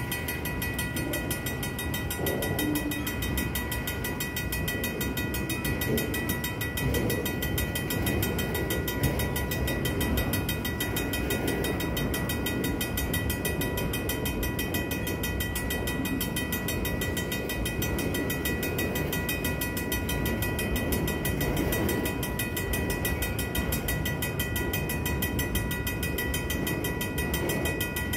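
Vintage mechanical railroad crossing bell ringing fast and steadily, over the continuous low rumble of freight cars rolling through the crossing.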